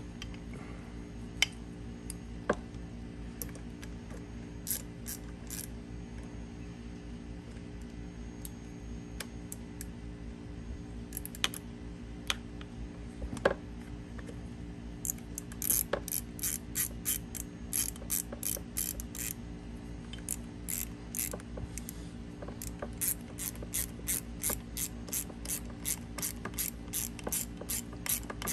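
Ratchet wrench clicking as bolts are run in and tightened on an outboard motor's starter mounting. A few scattered clicks and knocks come first; from about halfway on there are quick runs of rapid ratcheting, several clicks a second.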